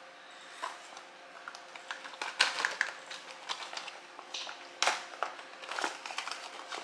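A plastic zip-lock bag holding a travel toothpaste kit being handled, giving irregular crinkles, rustles and sharp clicks, the loudest about two and a half and five seconds in.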